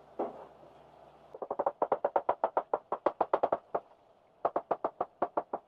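Kitchen knife chopping bitter melon (ampalaya) on a plastic cutting board, as quick, even knocks of the blade against the board. There are two fast runs of chops at about eight a second, with a short pause around four seconds in.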